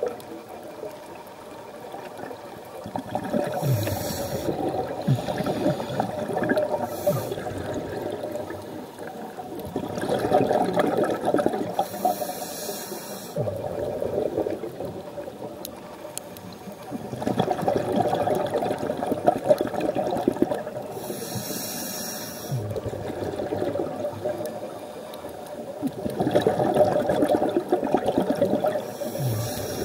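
Scuba diver breathing through a regulator underwater: a short hiss on each inhale, then several seconds of bubbling as the exhaled air escapes, repeating over several breaths.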